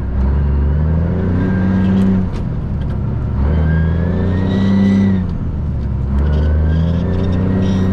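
Cummins ISM inline-six diesel of a bobtail Freightliner FLD 112 semi pulling through the gears: the engine pitch climbs, dips at a shift, and climbs again, three pulls in all.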